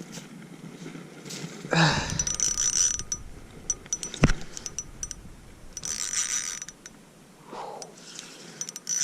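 Fishing reel running in three whirring, clicking bursts of about a second each as a bass is fought up through the ice, with one sharp click about four seconds in.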